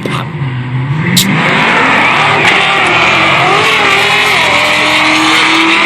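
Dodge SRT's engine revving hard through a burnout on the drag strip, loud, with a single sharp bang like a gunshot about a second in, then steady full-throttle running over tyre noise.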